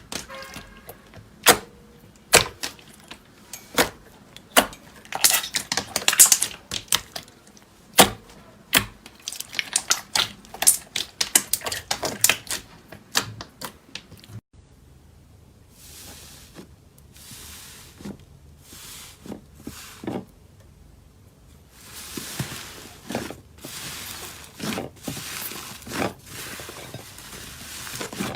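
Slime being handled by hand: a dense run of sharp crackling clicks and pops for about half the time, then softer swishing, rustling strokes.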